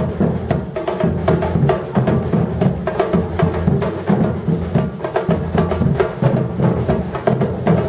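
Batucada drum ensemble playing a dense, driving rhythm: deep bass drums under a steady stream of sharp, high strikes.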